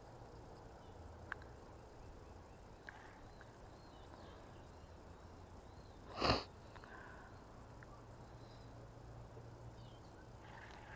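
Quiet lakeside ambience: a low steady background with faint high chirps and a couple of small clicks, broken about six seconds in by one brief, loud rush of noise.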